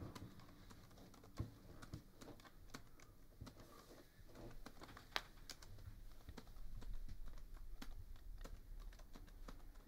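Laptop keyboard being typed on: soft, irregular key clicks, a couple of them sharper. Partway through there is a low rustle of bedding as someone sits down on the bed.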